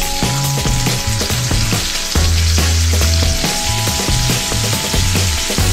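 Coated chicken pieces deep-frying in a wok of hot oil, a loud, steady sizzle. Background music with a pulsing bass line plays underneath.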